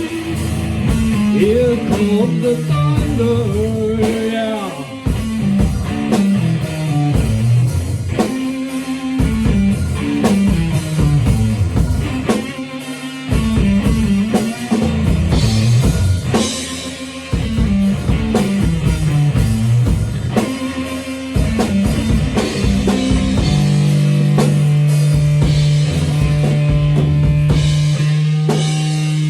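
Rock music played by a band with guitar and a drum kit, in an instrumental stretch between sung lines. A long low note is held through the last few seconds.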